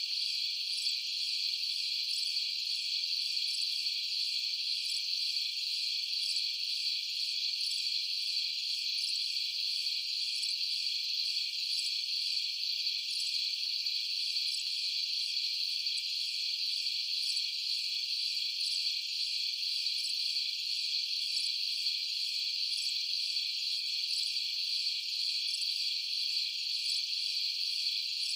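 A dense chorus of night insects, most likely crickets, trilling high and steady without a break.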